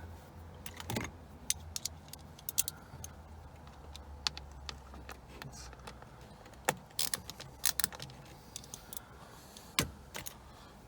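Scattered light metallic clicks and clinks of a Torx screwdriver and small screws being worked while a remaining T10 screw on the E36's clock spring is undone, at irregular intervals with a faint low hum underneath.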